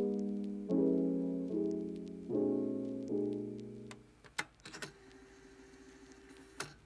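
Background piano music, chords struck about every second and dying away, fading out about four seconds in; then a few faint clicks.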